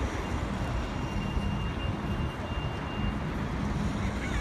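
Street traffic: a steady rumble of passing vehicles, with a thin high tone that holds for about three seconds and then stops.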